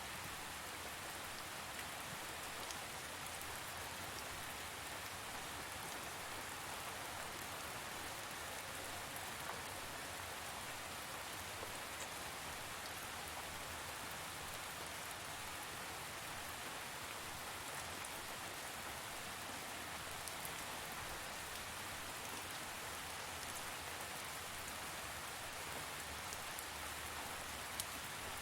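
Steady rain falling on a surface: an even hiss with scattered individual drop ticks, one sharper tick near the end.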